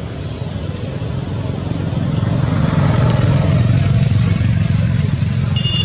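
Low rumble of a motor vehicle engine, growing louder about two seconds in and holding steady.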